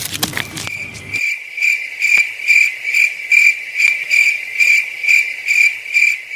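Cricket chirping: one steady high trill that pulses evenly a little over twice a second.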